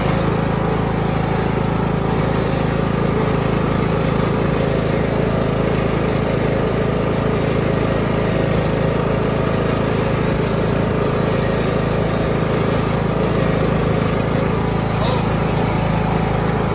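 Riding lawn mower's engine running steadily while the mower is driven along.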